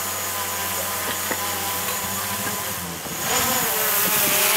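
A four-wheel-drive's engine running as it pushes through a shallow river crossing, with a steady motor hum. About three seconds in, the sound jumps louder, with water splashing and the engine note rising and falling.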